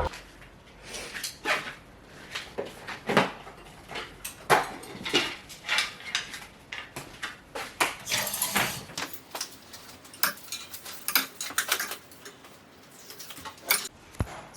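Irregular clinks, knocks and clatter of household items being handled, like dishes and cutlery, with a brief rustle about eight seconds in.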